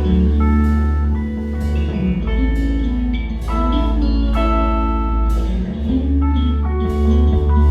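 Band music with a heavy, steady bass line, guitar and drums, with high held notes ringing over the top.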